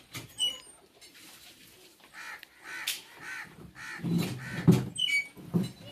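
Crows cawing repeatedly in short, arched calls, with a few thin high bird chirps. Low knocks of plastic chairs being moved and set down come about four seconds in, the loudest being just before the five-second mark.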